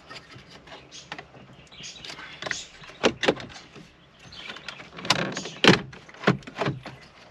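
Irregular clicks and knocks of tools and plastic dashboard trim being handled while bolts are removed from a car's dash, the loudest about five to six seconds in.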